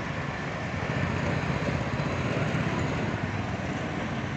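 Road traffic on a city street: scooters and cars passing close by, a steady low rumble.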